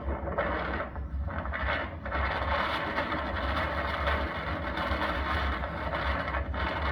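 Inside a storm-chase vehicle near a tornado: a steady low rumble with a dense rattling, scraping noise over it that thickens about two seconds in.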